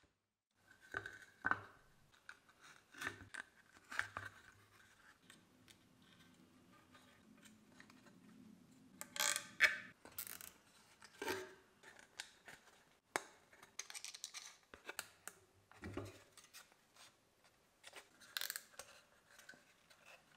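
Hands assembling a speaker crossover on a plywood board: scattered clicks, taps and short scrapes as copper inductor coils are set in place and fastened with zip ties. About nine seconds in there is a longer raspy scrape.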